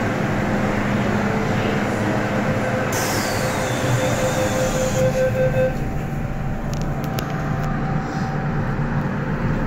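MTR Tsuen Wan line M-train pulling out of a station, heard from inside the carriage: steady rumble of the train. A sharp air hiss comes about three seconds in, and a pulsing tone stops at about six seconds as the train gets under way.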